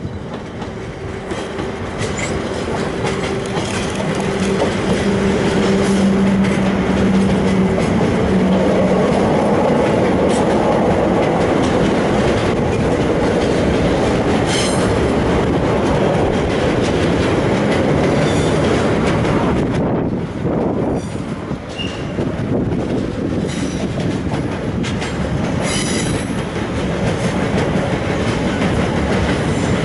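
SNCF BB 26000 electric locomotive hauling a long intermodal freight train past at speed. A steady hum comes from the locomotive as it approaches and passes in the first several seconds. The wagons follow with a continuous rumble and a rhythmic clickety-clack of wheels over rail joints, with brief high wheel squeals about halfway through and near the end.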